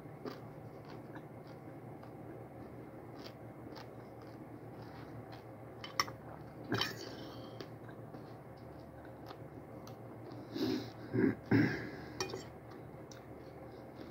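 Eating sounds: quiet chewing of fried dried fish and rice, with the clink and scrape of a fork on a plate. A sharp click comes about six seconds in, and a louder cluster of clinks and mouth noises about eleven seconds in.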